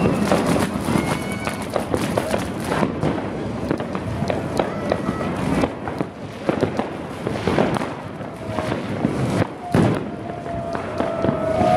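Firecrackers going off in rapid, irregular bangs, with people shouting in the street.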